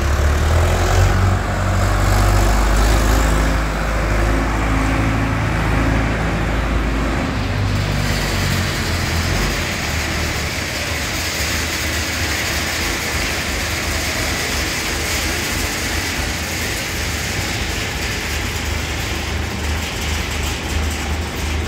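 Indo Farm 3065 DI tractor's diesel engine running as its front loader carries and raises a bucket of cotton, the engine note shifting up and down through the first eight seconds. After that a steady rushing noise joins it and lasts to the end.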